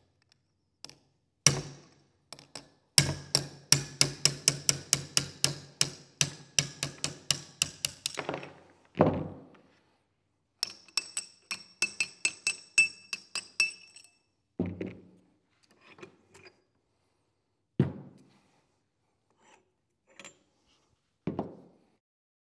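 Steel hammer striking a punch, extended with a governor shaft, to drive the roll pin out of the cross pin of a GM G80 locking differential carrier. One blow, then a fast run of blows about four a second, a heavier thud, then a second run of strikes with a high metallic ring; a few separate knocks follow near the end.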